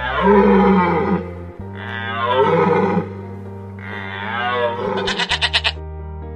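A deer calling three times, each call about a second long and falling in pitch, over steady background music. Near the end a goat gives a short, quavering bleat.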